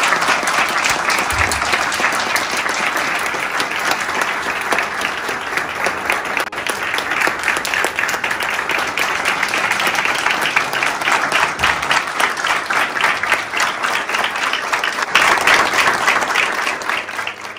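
Sustained applause from a roomful of people clapping, with a swell in loudness about fifteen seconds in.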